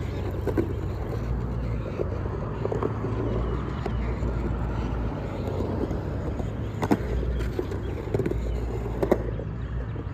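Skateboard wheels rolling and carving on a concrete bowl, a steady low rumble broken by a few sharp clacks of the board, the loudest about seven and nine seconds in.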